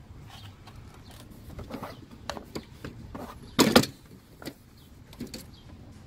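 Plastic windshield cowl trim being handled and worked loose by hand: a series of light clicks and knocks, with one louder short scrape about three and a half seconds in.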